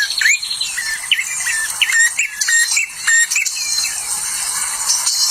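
Small wild birds calling: quick short chirps that swoop up and down, several a second, with higher, thinner twittering mixed in around the middle.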